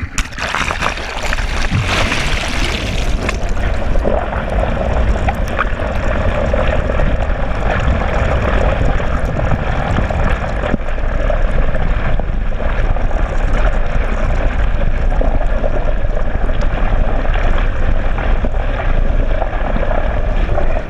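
Steady, muffled rush of churning water and outboard propeller wash heard through a GoPro's waterproof housing held underwater behind a moving boat. It begins abruptly as the camera plunges in.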